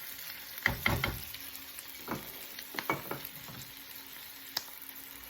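Mushrooms and onions sizzling in butter in a pan, with a utensil stirring and knocking against the pan several times.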